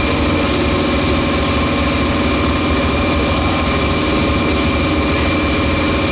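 Automatic case erector and carton sealing machine running, its motors giving a steady, even hum with several constant tones.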